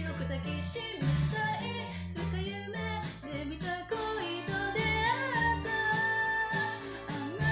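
Japanese pop song: a woman singing over a band backing with a walking bass line. About halfway through she holds a long note with vibrato.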